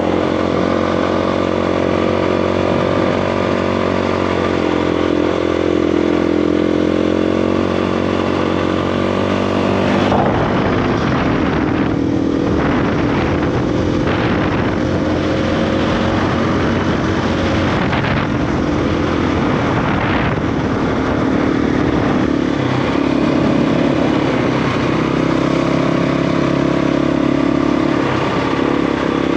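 KTM 350 EXC single-cylinder four-stroke dirt bike engine running under way. It holds a steady pitch for about ten seconds, then turns rougher and uneven as the revs rise and drop.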